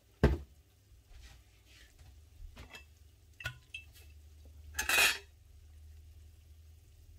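Metal kitchen utensils knocking and clinking against a stainless steel pot and other cookware. There is a sharp knock near the start, a few light ringing clinks, and a louder brief rustling clatter about five seconds in, over a low steady hum.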